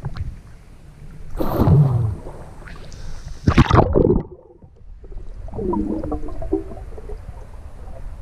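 Water splashing twice as the camera goes under the surface, then muffled underwater sound with bubbling gurgles.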